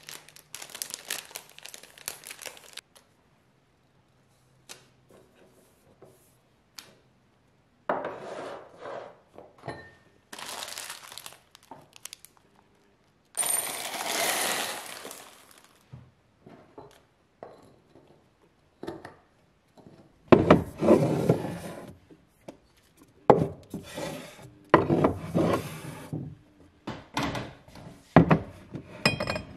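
Plastic bags of dried herbs crinkling and rustling, with knocks and clinks as a cut-glass jar and tins are handled on a wooden table. The sounds come in separate bursts with pauses between them, and the later ones carry heavier thuds.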